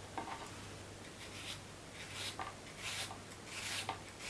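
Kitchen knife slicing an onion on a wooden cutting board: several quiet cutting strokes, spaced irregularly.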